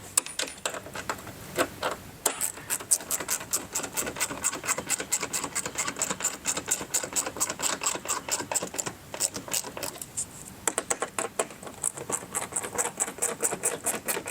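Phillips screwdriver turning the mud-flap screws into the bumper, with rapid steady clicking of about five clicks a second. There is a brief pause a little after ten seconds, then the clicking resumes.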